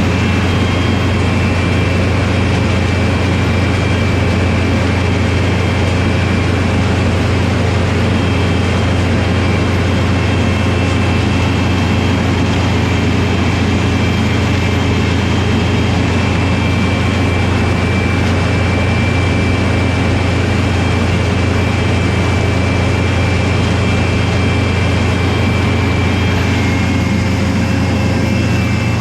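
Oxbo 8430 self-propelled ear corn picker running steadily: a loud, even low drone with faint steady higher whines over it.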